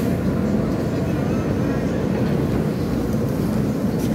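R160 subway car running along the track, heard from inside the car: a steady rumble of wheels and running gear.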